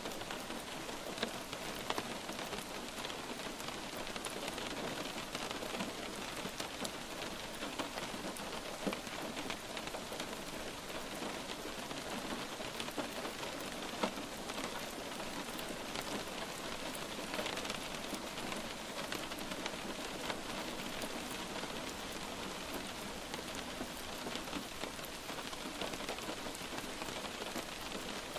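Light rain falling steadily, with scattered single drops ticking sharply on a surface.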